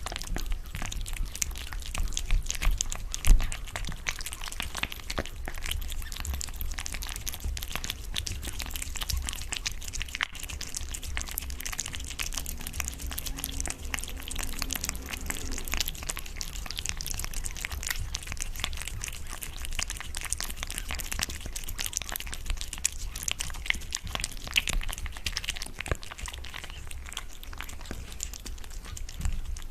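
A cat eating boiled fish: a dense run of close, wet chewing and mouth smacks, with one sharper knock a few seconds in.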